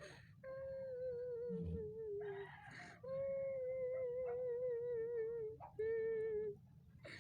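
A voice holding long, steady notes that waver slightly, several in a row with short breaths between them.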